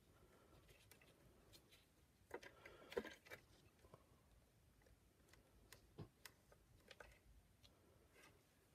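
Faint, scattered clicks and light handling noises as a circuit board and its wires are fitted by gloved hands into a plastic vacuum power-nozzle housing, busiest about three seconds in.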